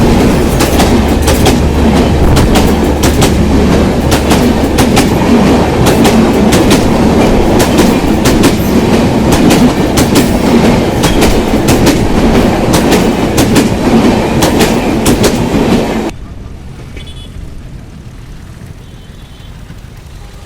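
Moitree Express passenger train passing close by, loud, its wheels clattering over the rail joints in a rapid run of sharp clacks over a heavy rumble. The sound cuts off abruptly about sixteen seconds in, leaving only a faint background.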